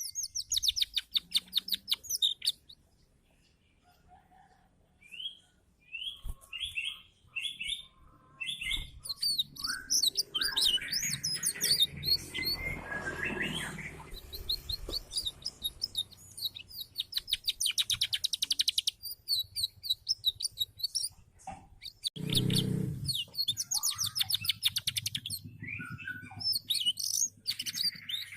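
Canary singing: phrases of fast trills and rolls of short, high notes, broken by short pauses.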